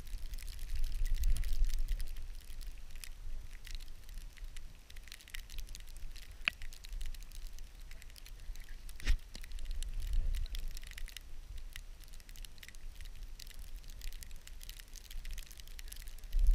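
Rubbing and handling noise from a camera strapped to a husky's back as the dog moves in snow: a low rumble with faint crackling as fur brushes the housing, and a couple of sharper clicks around six and nine seconds in.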